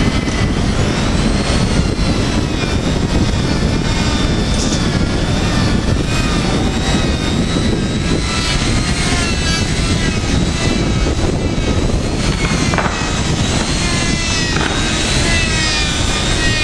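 Handheld electric angle grinder running steadily while buffing the rubber surface of a conveyor belt to prepare it for splicing. Its high motor whine wavers in pitch as the tool is pressed into and eased off the rubber.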